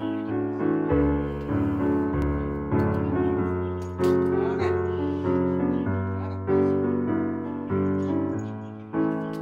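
Background piano music: a slow melody of struck notes, each ringing and fading.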